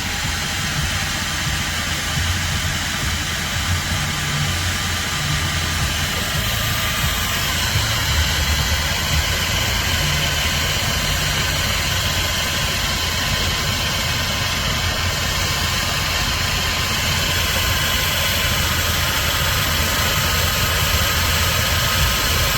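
A 12V electric car jack's motor switched on and running steadily, with a steady whine and a low hum, as it raises a truck.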